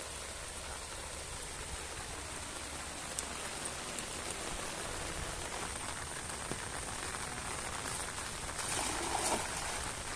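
Steady rain falling, an even hiss with scattered ticks of drops, a little louder near the end.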